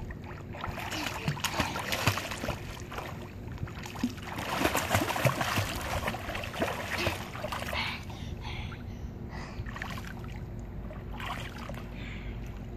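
Water splashing as a small child kicks and paddles across a swimming pool, busiest for the first eight seconds, then lighter splashing and water lapping.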